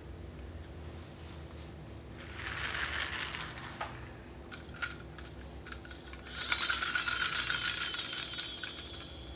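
Plastic toy trucks rolling across a tiled floor, their wheels rattling and clicking. There are a few sharp clicks, and about six and a half seconds in a louder, fast rattle starts and then fades.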